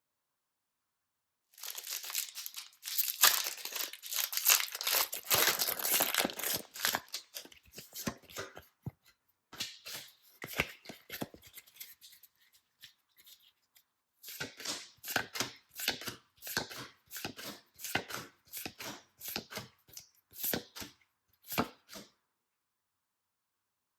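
Pokémon TCG product packaging being torn open and crinkled by hand: a long stretch of tearing and rustling, a few scattered rustles, then another run of crinkling.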